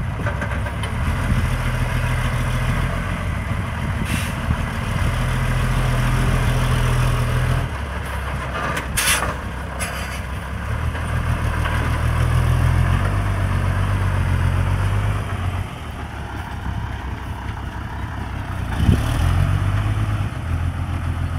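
Loaded dump truck's diesel engine running as the truck moves, swelling and easing off several times with the throttle. A short sharp hiss comes about nine seconds in.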